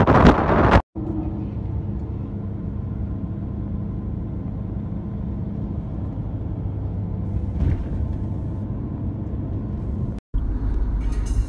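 Wind buffeting the microphone for about a second, then, after a break, the steady low rumble of a car driving, heard from inside the cabin. Music starts near the end.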